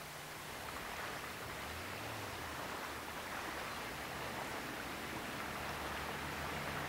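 Steady rushing outdoor ambience with no distinct events, a little louder from about a second in.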